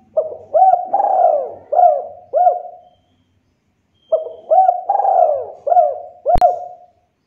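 Spotted dove cooing: two phrases of about five rounded, arching coos each, about a second apart. A single sharp click comes near the end of the second phrase.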